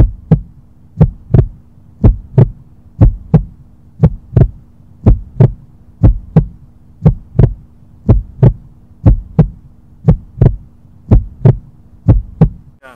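Heartbeat sound effect: a lub-dub double thump about once a second over a low steady hum.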